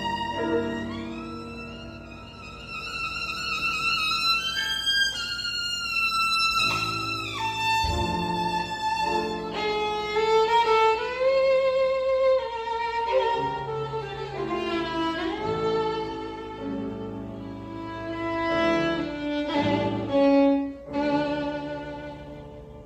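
Violin playing a slow, sustained melody with vibrato and sliding shifts between notes, over piano accompaniment; the phrase dies away near the end.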